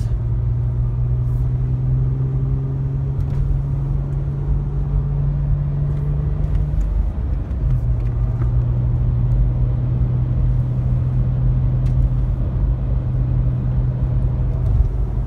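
Engine and road noise heard inside the cabin of a moving vehicle: a steady low engine hum over tyre rumble, the hum dropping in pitch for a moment about seven seconds in.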